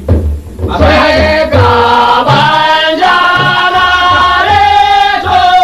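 Hausa song: a voice singing long, wavering melodic lines over a low, steady musical pulse, after a short break near the start.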